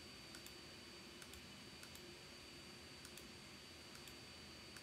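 Faint, irregular computer mouse clicks, about eight of them, over near-silent room tone with a faint steady high tone.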